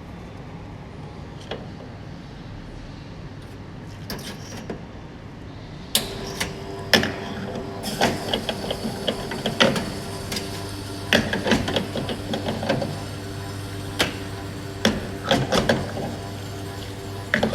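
Metal espresso parts such as the portafilter and basket clinking and clattering as they are handled and cleaned: a quick series of sharp irregular knocks and clicks starting about six seconds in. A low steady hum comes in partway through.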